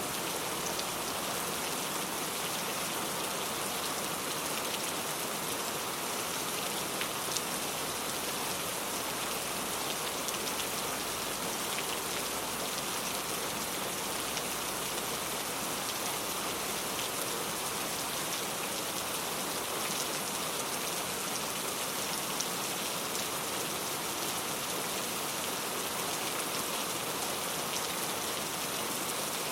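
Steady rain falling, an even patter of drops with scattered small ticks.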